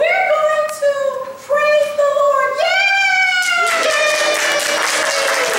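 A high-pitched puppet voice in short sing-song phrases, ending on a long held note about three seconds in. Then applause breaks out.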